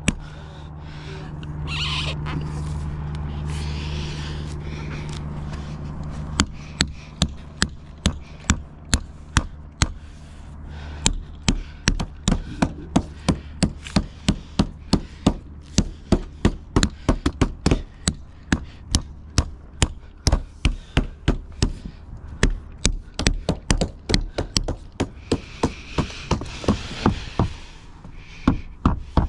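A steady low hum for about the first six seconds, then rapid, evenly spaced knocking, about three knocks a second, that keeps on to the end.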